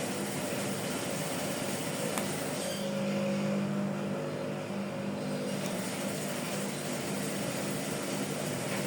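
Steady machine hum, like a motor running, with a faint click about two seconds in.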